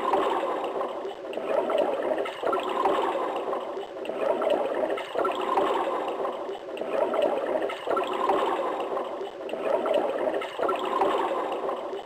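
Tap water pouring into a filling bathtub, a splashing, gurgling rush that swells and eases about every second and a half, cutting off suddenly at the end.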